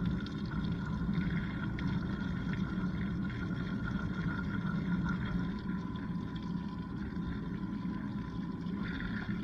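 LG washing machine running a wash cycle, heard from inside the drum: a steady low churning of water and tumbling load with a continuous motor hum.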